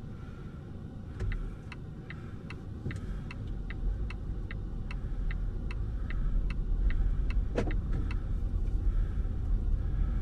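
Low road and tyre rumble of a Volvo XC40 Recharge electric SUV heard from its quiet cabin while driving, with no engine sound, growing louder about six seconds in. Over it the turn-signal indicator ticks about two and a half times a second, stopping about eight seconds in.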